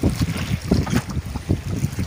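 Wind buffeting the microphone in irregular low thumps, several a second, over the noise of a boat moving across open water.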